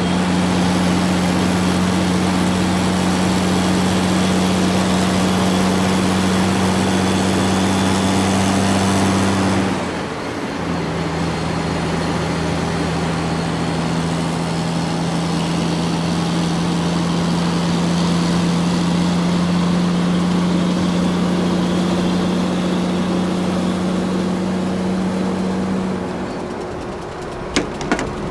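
Radio-controlled toy excavator working, its motor giving a steady pitched hum that drops to a slightly lower pitch about ten seconds in. The hum stops near the end and is followed by a few sharp clicks.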